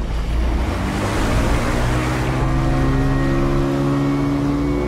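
Motorboat's outboard engine running at the water's edge with water noise, joined from about a second and a half in by a steady low drone of several held tones.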